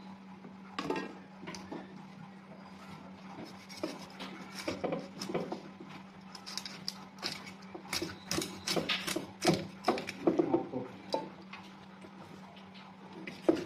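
Meat cleaver chopping up a whole plucked duck on a thick wooden chopping block: irregular knocks and thuds, coming thickest in the middle, over a steady low hum.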